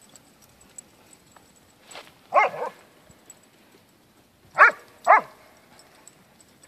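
Dog barking: one bark about two seconds in, then two quick barks about half a second apart.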